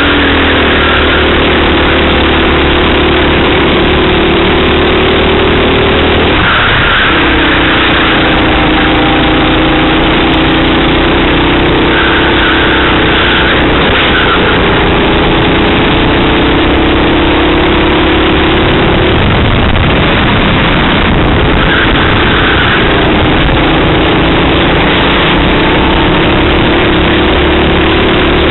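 Racing kart engine recorded by the onboard camera, loud and steady. The engine note drops and climbs again three times, as the kart slows for corners and accelerates out of them.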